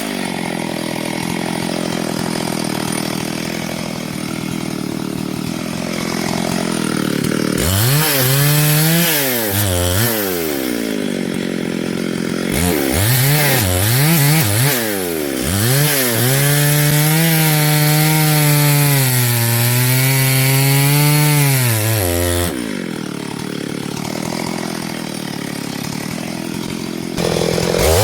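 Gasoline chainsaw cutting wood, its engine pitch swinging up and down as it is revved and loaded, holding a steady high pitch for several seconds in the middle. The sound changes abruptly several times.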